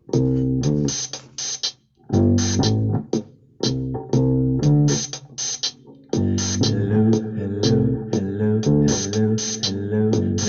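Instrumental intro of a band song: guitar and bass with sharp hits, played in stop-start phrases broken by short gaps. About six seconds in, the full band comes in and plays continuously.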